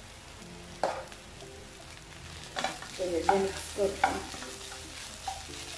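Wooden spatula stirring and mashing potato filling in a non-stick pan, scraping across the pan with a few sharper knocks, mostly in the middle of the stretch, over a faint sizzle of frying.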